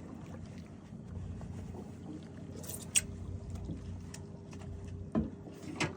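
Fishing boat's engine running steadily on the water, a low rumble, with a few sharp clicks or knocks about three seconds in and twice near the end.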